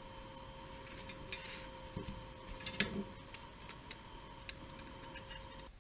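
Faint light clicks, taps and a brief rustle of disposable white plastic cutlery being handled in the fingers, over a steady faint electrical hum that cuts off abruptly near the end.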